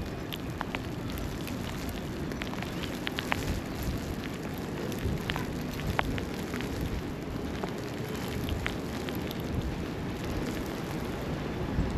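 Outdoor city ambience in a snowstorm: a steady low rumble with many small, irregular ticks scattered throughout.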